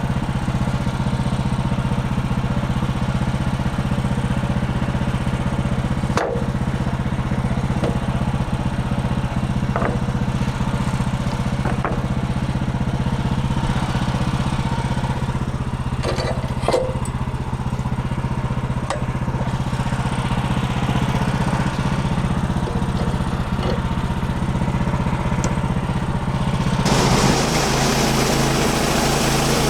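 Portable bandsaw sawmill's gas engine running at a steady speed, with a few brief knocks. Near the end the sound changes and gets louder, with more hiss over the engine.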